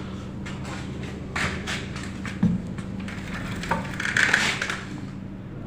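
Handling noise from small metal parts and wires being set out on a bench: short clicks and knocks, loudest about two and a half seconds in and in a quick cluster near the end, over a steady low hum.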